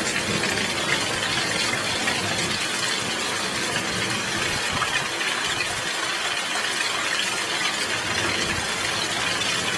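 Heavy rain falling steadily, an even hiss with no thunder clap.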